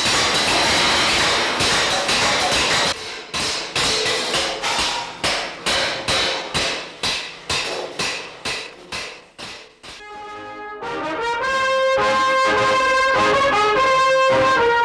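Quick metal strikes on cymbals, each ringing and dying away, crowded together at first, then about two or three a second and fading out. About ten seconds in, a brass section with trombones takes over, playing sustained notes with an orchestra.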